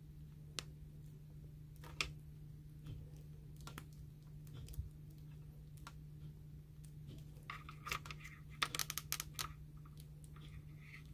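Small plastic clicks and taps of an S.H.Figuarts Satoru Gojo action figure being handled as its faceplate and head are fitted back on: a few single clicks, then a quick run of clicks about eight seconds in. A steady low hum runs underneath.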